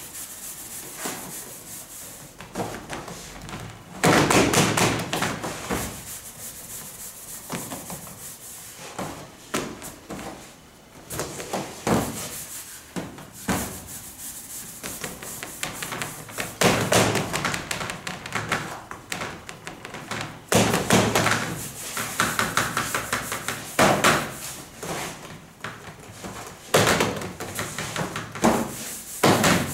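Hands rolling and pressing bread dough for pan de muerto on a floured steel worktable, with irregular rubbing and scattered taps and thumps as dough pieces are set down on metal baking trays.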